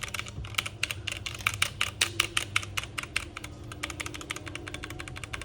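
Rapid typing on a mechanical gaming keyboard: a fast, uneven stream of key clicks, several to about ten a second, played to let its switch sound be heard.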